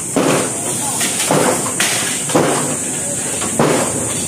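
Demolition of a steel-frame stall: several irregular knocks and bangs as workers pull apart and strike the metal frame, each dying away over about half a second, with voices and a steady hiss behind.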